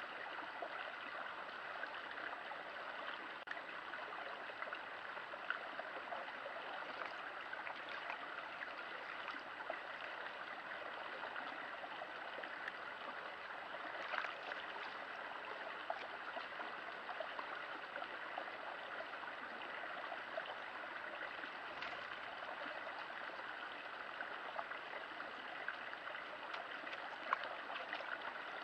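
Faint, steady flowing water of a small stream.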